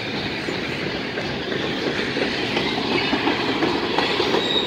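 Freight cars of a mixed freight train, covered hoppers and tank cars, rolling past close by: a steady noise of steel wheels on the rails.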